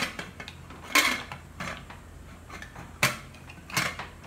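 Stainless-steel pressure cooker lid being fitted onto the pot and twisted shut, with a few sharp metal clinks and scrapes against the rim.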